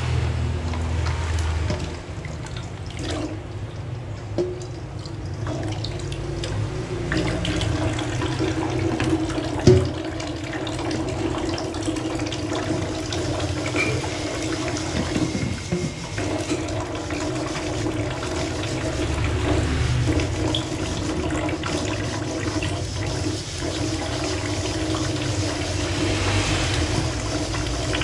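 Tap water running and splashing into a stainless steel sink while a large black pot is rinsed and scrubbed with a sponge, with small scattered clatters. A single sharp knock comes about ten seconds in.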